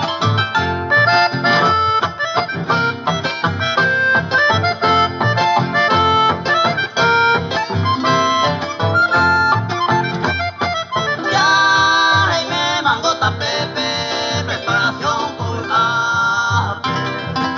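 Paraguayan folk band playing: harp and accordion carry the melody over a steady bass pulse. About two-thirds of the way through, the higher parts swell into long held notes.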